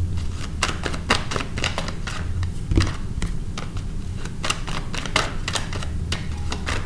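Tarot deck being shuffled by hand: a quick, irregular run of card clicks and slaps, several a second, over a low steady hum.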